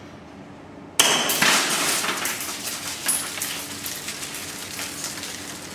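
SocomGear Noveske N4 gas blowback airsoft rifle firing a rapid burst that starts suddenly about a second in, then thins out into scattered clicks.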